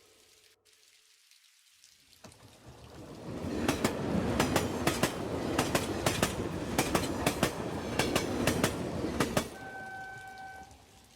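Train wheels clattering over rail joints as a train passes, with many sharp clacks. It builds up about three seconds in and cuts off abruptly after about nine seconds, followed by a brief steady high-pitched tone.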